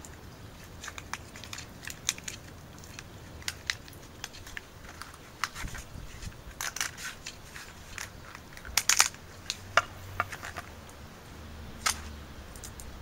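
Irregular small clicks, crackles and rustles of close hand work on wiring, with a denser, louder flurry of crackling about nine seconds in.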